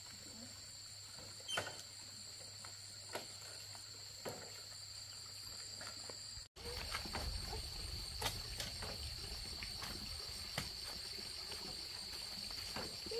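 Steady insect chorus, a continuous high-pitched drone, with a few faint clicks. About halfway through the sound drops out for an instant, and afterwards a low rumble joins it.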